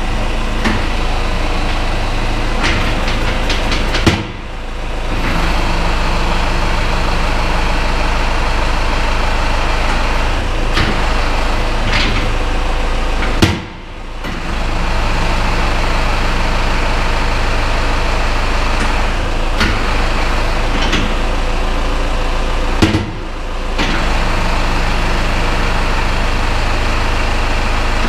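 Tractor diesel engine running steadily, with a few knocks. Three times the sound drops away sharply and builds back up within about a second.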